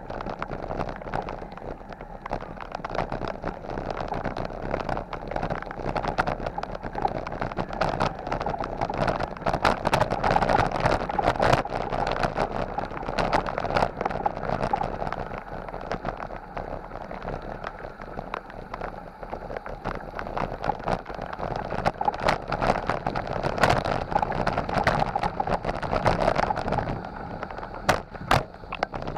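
Bicycle rolling over a rough dirt and gravel road: a steady rushing noise shot through with constant clicks and rattles from the tyres on stones and the bike shaking.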